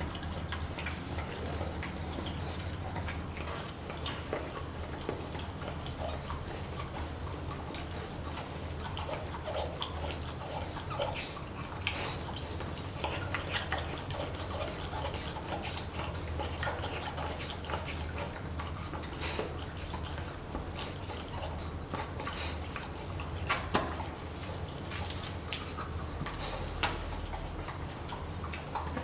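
Pomsky puppy licking and chewing at a stuffed Kong rubber toy: irregular wet smacking and licking with small clicks, a few louder knocks about three-quarters of the way through, over a steady low hum.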